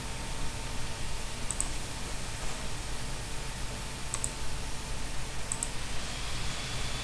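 Computer mouse clicking, three quick double clicks about a second and a half, four and five and a half seconds in, over a steady microphone hiss.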